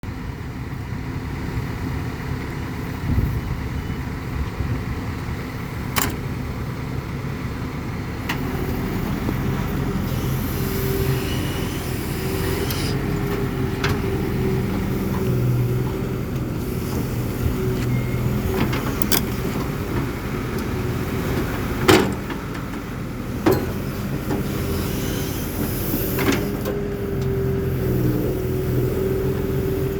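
Hydraulic excavator running steadily, its engine hum joined by a held whine that rises and dips slightly as it works. A few sharp knocks or clanks stand out, the loudest about two-thirds of the way in.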